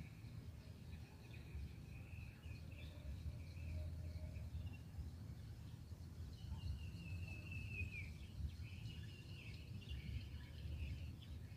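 Birds chirping and calling over a low steady rumble of outdoor noise. One longer call slides down in pitch about seven seconds in.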